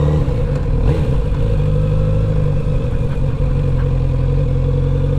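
Kawasaki Z900RS inline four-cylinder engine running at low, steady revs as the motorcycle rolls along slowly.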